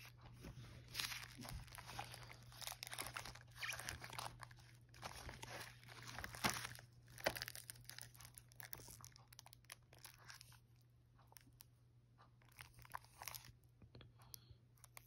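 Handling noise of a Blu-ray combo pack: its cardboard slipcover is slid off the plastic case and the case is turned over, giving irregular rustles and crinkles that die down in the last few seconds.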